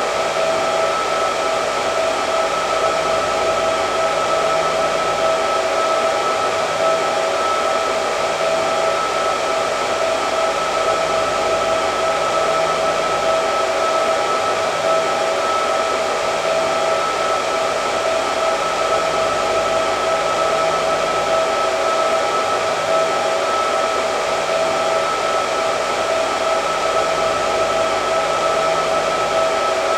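Hair dryer running continuously: a steady rush of air with a constant motor whine.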